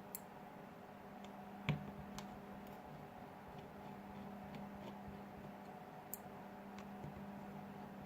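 Small, sparse clicks and ticks of a precision screwdriver working the tiny screws out of a smartphone's inner frame, with one sharper click just under two seconds in, over a faint steady hum.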